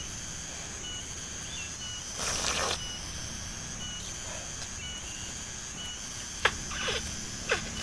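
Outdoor ambience of insects buzzing steadily at a high pitch, with a short high chirp repeating about once a second. A brief rustle comes a little after two seconds in, and two sharp knocks come near the end.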